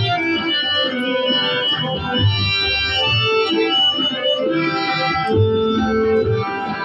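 Instrumental interlude of a song: a keyboard instrument plays a melody in held notes over a recurring bass line, with no singing.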